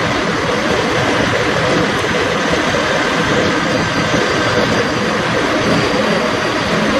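Diesel semi truck engine idling steadily at close range.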